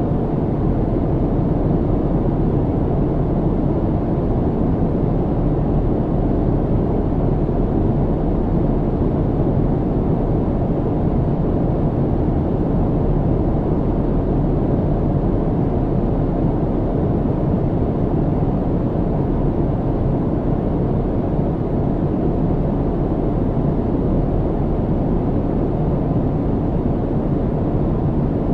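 Steady, low rumble of airplane cabin noise in flight, even throughout with no distinct events.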